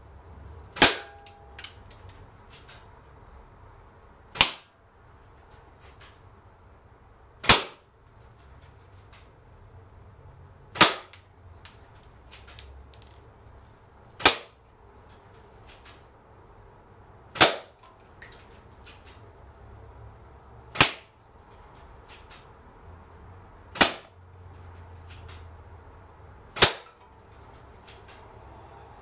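Snow Wolf Kar 98k bolt-action spring airsoft rifle firing 0.28 g BBs: nine sharp cracks, one roughly every three seconds, with fainter clicks in between as the bolt is cycled to re-cock the spring.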